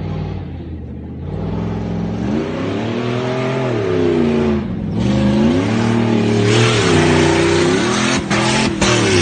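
An off-road vehicle's engine revving, its pitch climbing and falling several times as the throttle is worked. About two-thirds of the way in a loud rushing hiss joins it.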